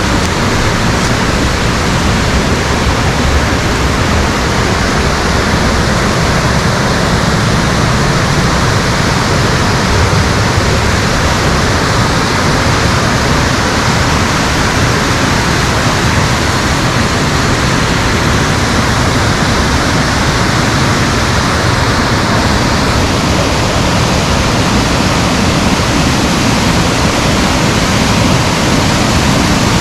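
Waterfall, water falling and splashing in a loud, steady rush.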